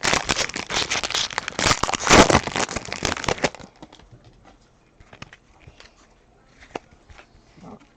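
Crinkling and tearing of a foil trading-card pack wrapper, loud for about three and a half seconds, then faint clicks and rustles of cards being handled.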